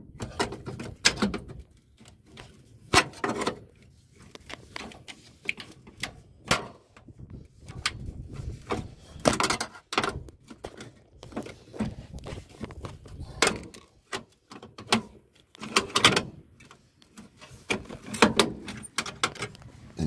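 A steel hook tool prying against the toothed sheet-metal retainer ring of a Chevy Silverado's spare tire door lock cylinder in the rear bumper: irregular metallic clicks, clanks and scrapes as the retainer is bent hard to work it out of the bumper hole.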